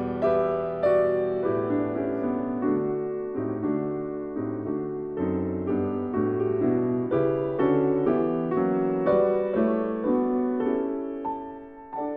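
Piano music, notes played one after another at a moderate pace, growing softer near the end.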